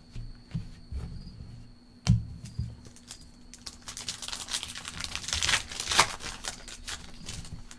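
Trading cards being handled, with a sharp knock about two seconds in. From about four seconds in, a foil card-pack wrapper crinkles and tears as a pack is opened.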